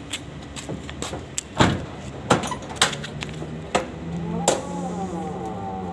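Footsteps in rubber flip-flops slapping on a concrete floor: a handful of sharp, irregular slaps and knocks. From about four seconds in, a steady mechanical hum with a wavering pitch joins them.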